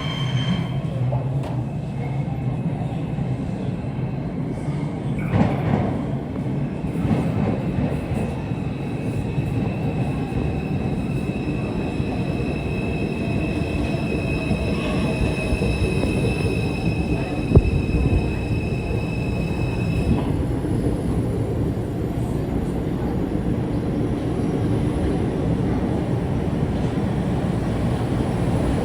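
New York City subway train running with a steady rumble of wheels on rail. Through the middle its wheels squeal in a high steady ring that cuts off sharply about two-thirds of the way in, with a single sharp clank just before.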